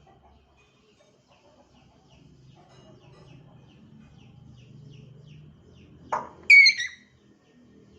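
African grey parrot giving one loud, sharp call about six seconds in, a quick burst followed by a louder squawk. Faint, rapid chirps repeat in the background before it.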